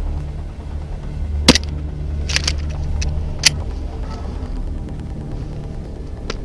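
Wind rumbling on the microphone, with several short sharp snaps over it: one about a second and a half in, a quick pair about a second later, another a second after that, and a last one near the end.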